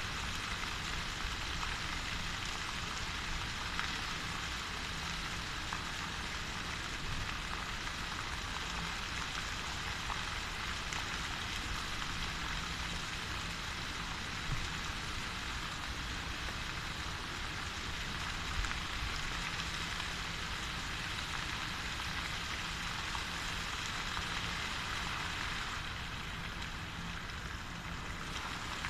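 Steady splashing of fountain water jets, an even rain-like hiss with a low rumble underneath; the hiss eases a little near the end.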